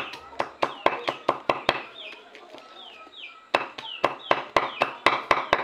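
Knife chopping vegetables on a wooden block: quick sharp chops, about four or five a second, which stop for a second and a half midway and then start again faster. Short falling bird chirps sound in the background.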